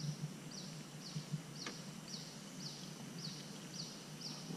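Faint high chirps from a calling animal, repeated evenly about twice a second, each sliding down in pitch.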